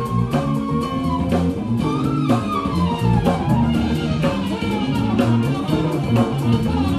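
Live jazz band playing an upbeat groove: hollow-body guitar with a drum kit keeping steady time over a moving bass line.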